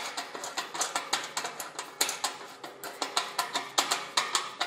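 Ratcheting screwdriver clicking rapidly, several sharp clicks a second, as a screw is turned into the fitting on an aluminium wing tube.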